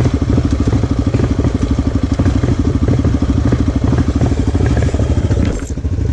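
ATV engine running steadily under way, a rapid even pulse of exhaust beats, dipping briefly about five and a half seconds in.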